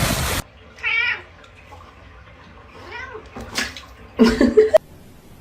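A cat meowing several times in short wavering calls, the loudest near the end and cut off abruptly.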